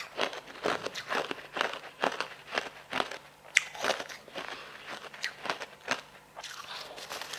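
Crisp crunching bites into a block of packed crushed ice, a crunch about twice a second with one sharp crack in the middle, thinning out near the end.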